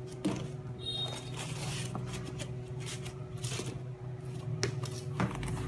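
A few light clicks and rustles from an aluminium carry case and its foam lining being handled, over a steady low hum.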